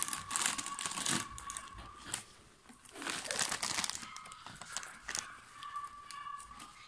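Foil-lined crisp packets crinkling and rustling as they are handled, in several bursts: in the first second, again around three seconds in, and briefly about five seconds in.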